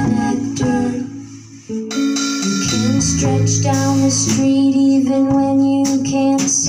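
Live band music: a woman singing over an archtop electric guitar, drums and cymbals. The music drops away briefly about a second in, then comes back in with held notes.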